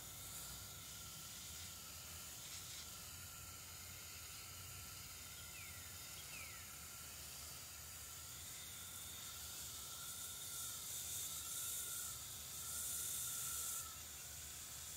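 Water from a garden hose watering wand's shower head spraying onto loose potting soil and leaves: a steady, soft hiss that grows louder for a few seconds near the end. The bee balm is being watered in after planting.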